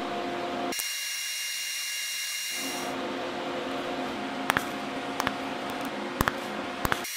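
Welding arc on the steel gearbox housing, a steady hiss whose tone changes abruptly twice in the first few seconds. Several pairs of sharp clicks come in the second half.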